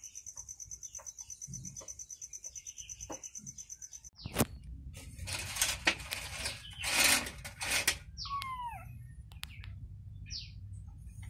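A steady, rapidly pulsing high buzz stops abruptly about four seconds in. Loud rustling and a few sharp knocks follow, then a single high-pitched newborn kitten mew that falls steeply in pitch. Short high chirps come near the end.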